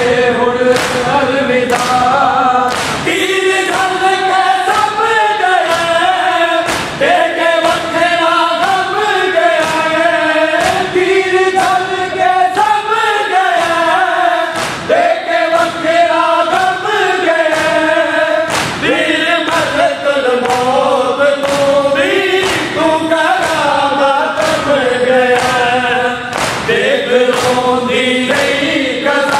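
A Shia noha led by a male reciter through a microphone, with a crowd of men singing along, over the rhythmic strokes of matam: hands striking chests in unison, a little more than once a second.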